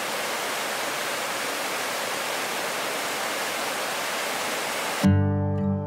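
Waterfall rushing: a steady, even wash of falling water. It cuts off suddenly about five seconds in, when strummed acoustic guitar music starts.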